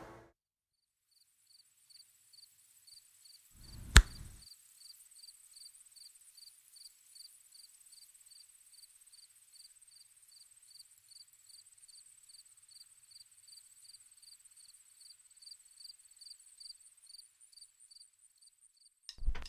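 Faint, high-pitched chirping repeating evenly about two to three times a second over a thin steady high tone, with a single sharp knock about four seconds in.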